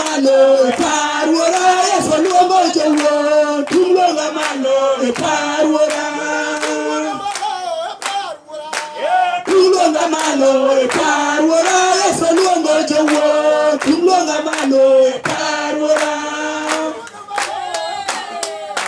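A group of women singing together unaccompanied, clapping their hands in a steady beat. The singing breaks off briefly about eight seconds in before carrying on.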